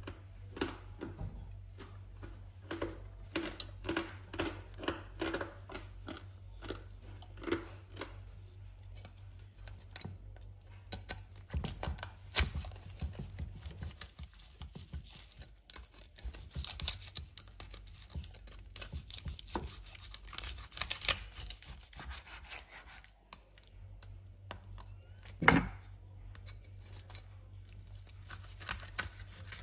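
A chef's knife saws through the crisp crackling of a roast pork, and each stroke cracks and crunches the rind against a wooden cutting board. The crunching comes in repeated strokes with short pauses, and a single loud crack comes near the end. The crackling is very crisp.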